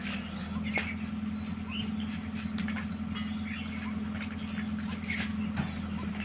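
Cats and a dog eating from plates on a tiled floor: scattered small clicks of food and dishes, with short high chirps coming and going, over a steady low hum.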